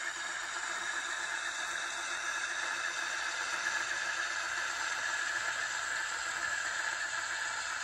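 Fleischmann N-scale model M62 diesel locomotive rolling slowly, its DCC sound decoder playing a steady diesel engine running sound through a small onboard speaker. The sound is thin, with little bass.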